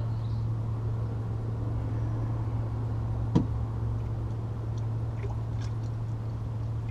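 Steady low engine hum with a single sharp click a little over three seconds in.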